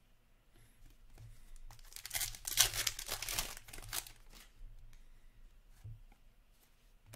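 Foil wrapper of a hockey card pack being torn open and crinkled in the hands, loudest from about two to four seconds in, with softer rustling of the wrapper and cards either side.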